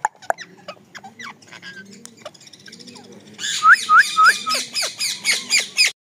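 Rose-ringed (Indian ringneck) parakeets calling. Scattered short chirps come first, then a little over halfway through a loud, even run of sharp screeches starts, about four a second, for some two and a half seconds.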